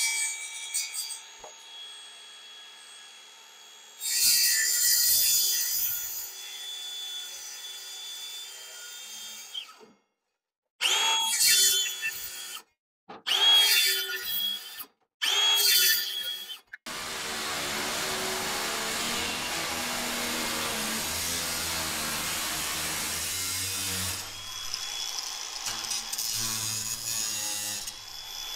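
Makita circular saw cutting aluminum hull plate in several runs, its motor whining up and winding down, with abrupt breaks between runs. From a little past halfway through, an angle grinder runs steadily against the aluminum plate edge.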